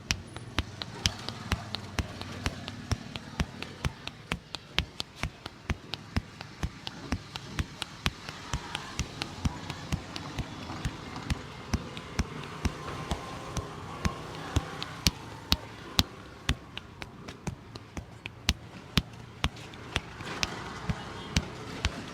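A barber's hands slapping and tapping in a percussive massage: a steady run of sharp smacks, about three a second, some louder than others.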